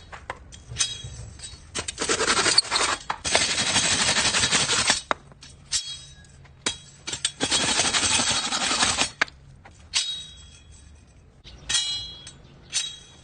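Bursts of rasping, scraping noise, each lasting from a moment to a few seconds, followed near the end by a couple of sharp metallic clinks that ring briefly.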